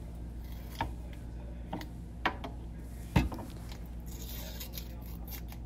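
A table knife cutting a stick of butter into pieces, with a few sharp clicks and knocks of the knife, the loudest about three seconds in, and a soft rubbing hiss near the end.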